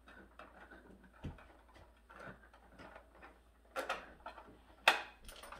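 Faint rattling and clicking of horizontal window blind slats tilting shut as the blind's wand is twisted with a grabber tool, with two sharper clacks near the end.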